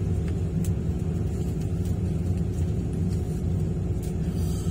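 Diesel engine of a hydraulic excavator running at a steady, even drone, with no change in speed.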